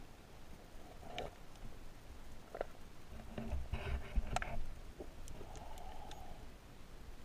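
Scattered muffled clicks and knocks, with a low rumbling stretch about three and a half to four and a half seconds in, from a camera being handled and bumped while submerged in an aquarium.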